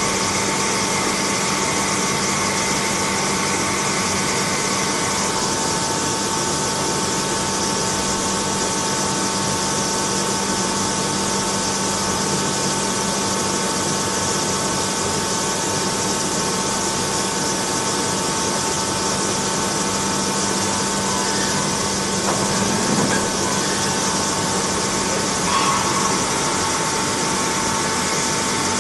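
CNC lathe running while turning a steel shaft for a screw-compressor rotor: a steady machine noise with a constant whine, with a brief louder noise about 26 seconds in.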